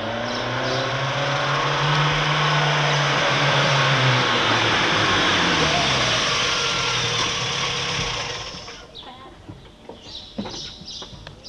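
Red Volkswagen car's engine running close up as the car rolls toward the camera: a steady loud rush with a low hum, which dies away about eight and a half seconds in as the car stops. Short faint voices and knocks follow.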